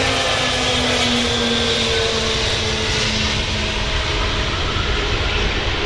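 Antonov An-124-100's four turbofan engines at takeoff power as the freighter lifts off the runway: a loud, steady rush of jet noise, with a whine that drops slightly in pitch over the first few seconds and then holds.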